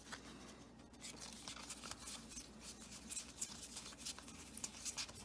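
Faint soft ticks and rustles of Magic: The Gathering cards being slid off a stack one at a time in the hands, over a low steady room hum.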